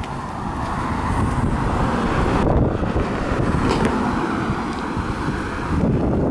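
A sedan driving past close by, its tyre and engine noise swelling as it approaches and easing as it drives away, with wind rumbling on the microphone.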